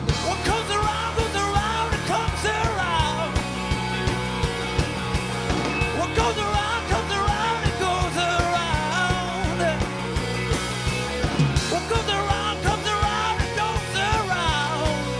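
Live pop/rock band playing: a steady drum beat and bass under a bending, wavering melodic lead line.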